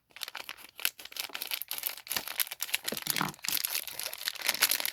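Thin plastic wrapping crinkling and tearing, a dense irregular crackle, as an Orbeez squeeze ball is unwrapped.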